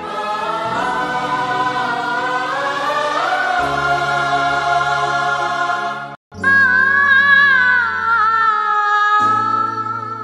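Slow music: a long-held, choir-like sung melody over sustained low notes, with a brief break about six seconds in.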